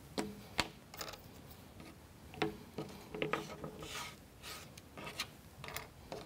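Small, thin wooden model-kit parts being picked up and set down on a cutting mat: light irregular clicks and taps, with soft rubbing and sliding in between.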